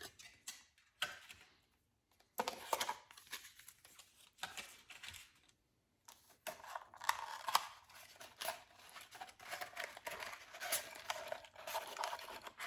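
Intermittent crinkling and tearing of paper packaging, with a few light clicks, as a freshly opened tin of crumble-cake pipe tobacco is handled. The rustling comes in short bouts with brief pauses.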